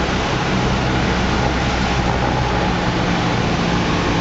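Cessna 172's piston engine and propeller droning steadily inside the cockpit, mixed with airflow noise over the airframe, on final approach to land.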